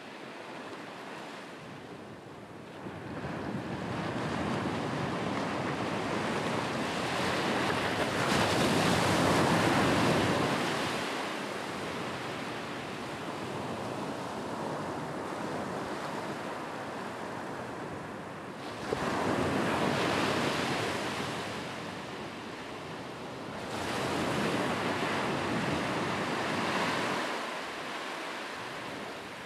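Ocean surf washing onto a sandy beach, a steady rush that swells and fades in three long surges.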